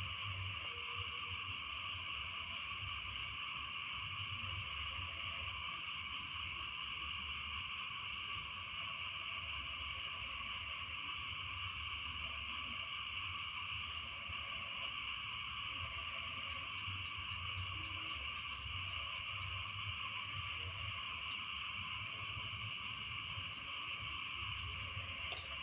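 Chorus of frogs calling after rain: a dense, steady trilling with shorter repeated calls layered over it.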